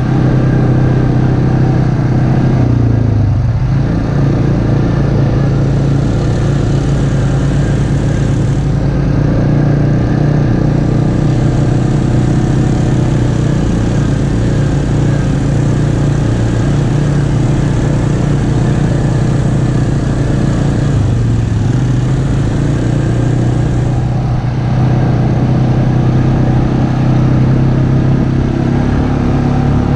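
ATV engine running steadily at trail speed, its note dipping briefly a few seconds in and again after about twenty seconds as the throttle eases.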